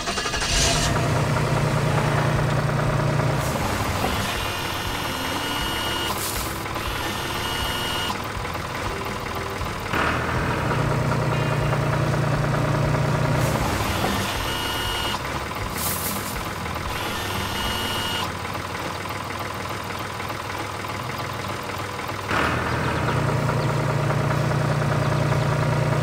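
Cartoon tractor engine sound effect running continuously, with a louder low engine hum coming in three times, about every ten seconds, for a few seconds each time.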